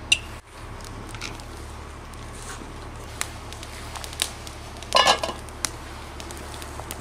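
Campfire crackling with scattered sharp pops, and about five seconds in a brief metallic clatter as a lid is set onto the aluminium cooking pot.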